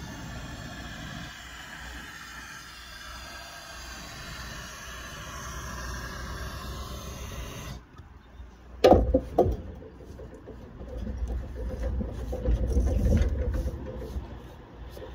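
Gas blowtorch hissing steadily while the lead is heated to soften it. After an abrupt change about halfway, two sharp knocks, then a louder rumbling noise near the end.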